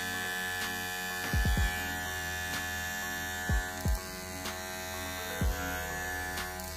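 Unbranded corded hair clipper running with a steady electric buzz. Several short low thumps that drop in pitch cut through it: three close together about a second and a half in, two more a few seconds in, and one more a little later.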